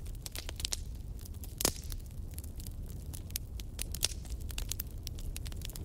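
Wood fire burning in a fireplace, crackling with irregular sharp pops over a low steady rumble, with one louder pop a little under two seconds in.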